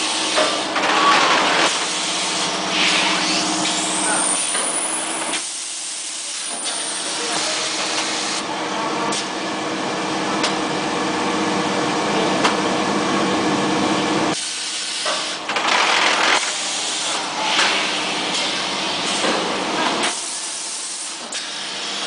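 Plastic vacuum forming machine running: a steady mechanical hum with repeated hisses of compressed air from its pneumatic cylinders.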